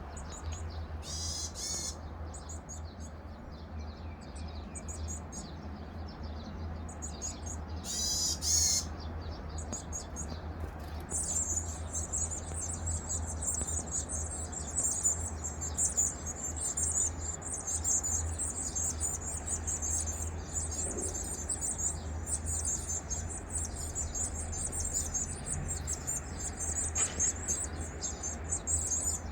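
Varied tit chicks in the nest begging: a dense, continuous high-pitched chattering that sets in about ten seconds in and goes on, after two short, loud calls near the start and about eight seconds in.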